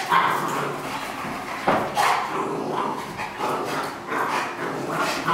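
Dogs barking repeatedly at play, a run of separate barks about a second apart.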